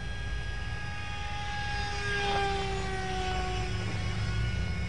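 Brushless electric motor and propeller of a small Mini Swift RC flying wing whining in flight, its pitch sliding down about halfway through as it passes.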